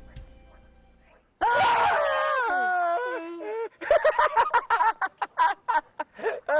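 A man's loud wailing cry begins about a second and a half in and slides down in pitch for about two seconds. It then breaks into a quick run of choppy vocal bursts. Faint music fades out just before the cry.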